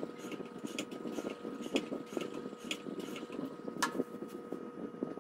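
Irregular light clicks and taps from handling a metal guided knife-sharpening jig and its clamp, with a sharper clink about four seconds in, over a steady hum.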